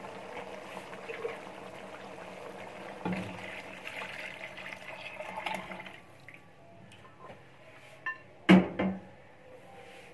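Beef stock (yakhni) being poured into a pan of frying beef and yogurt gravy, the liquid splashing and hissing for about six seconds, then a quieter simmer with a few sharp knocks near the end.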